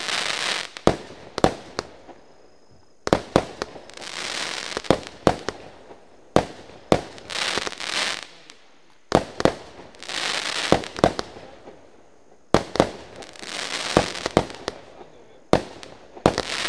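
Stienen Pyro Parade fireworks cake firing shot after shot: about six volleys, each a few sharp launch and burst reports followed by about a second of hiss and crackle, repeating roughly every three seconds.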